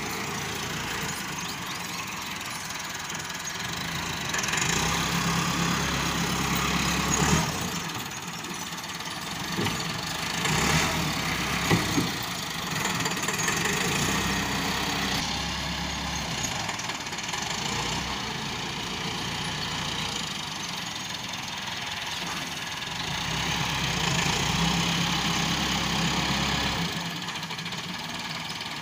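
Tractor diesel engine running while it works a front-end loader, swelling louder for a few seconds at a time. There are a few sharp knocks near the middle.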